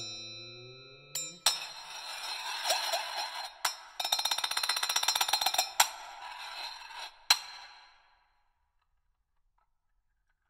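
Two hand-held Tibetan singing bowls played with bare hands: a struck ring whose low tones bend in pitch, then the bowls' rims rubbed and rattled against each other in a dense metallic scraping chatter, broken by several sharp clinks. The sound dies away about eight seconds in.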